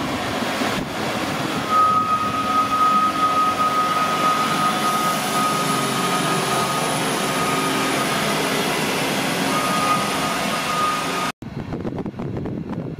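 Road-rail Unimog's diesel engine running as it drives along the track, with a steady high-pitched tone sounding over it for most of the pass. It cuts off sharply near the end.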